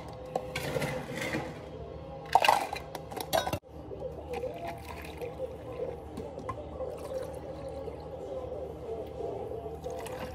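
Ice cubes clattering as they are scooped into clear plastic cups, in a few sharp bursts. After about three and a half seconds, water is poured from a plastic pitcher over ice in the cups, a steady running pour, with background music.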